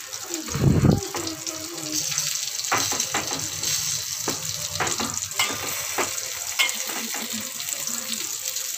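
Metal spoon scraping and knocking against a steel pot while stirring cooked rice, in irregular clicks over a steady hiss, with a heavy bump about half a second in.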